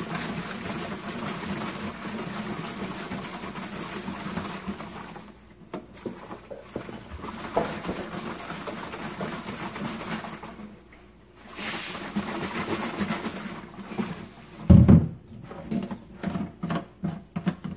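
Liquid sloshing inside a clear plastic jar as it is shaken hard, in three long bouts with short pauses between. About fifteen seconds in the jar knocks down onto a stainless steel sink, followed by a few lighter knocks.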